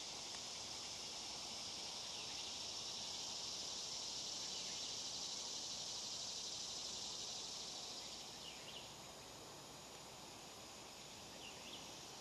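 A steady, high-pitched insect chorus that eases off about two-thirds of the way in. Two faint, short chirps come near the end.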